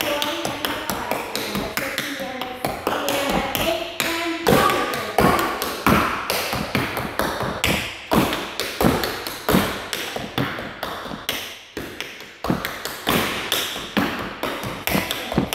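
Tap shoes striking a wooden studio floor in quick rhythmic tap-dance steps, with a short pause about twelve seconds in.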